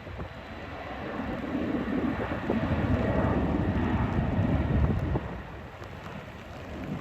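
Jet airliner on a wet runway: a low rushing engine noise that swells from about a second in and drops away suddenly about five seconds in.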